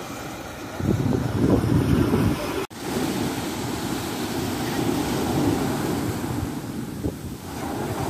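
Small waves breaking and washing up on a sandy shore, with wind buffeting the microphone. The surf is louder for a couple of seconds about a second in, then the sound cuts out for an instant before the wash carries on.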